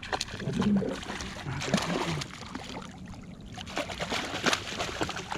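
Scattered clicks and knocks over a faint trickle of water as a just-landed fish is handled.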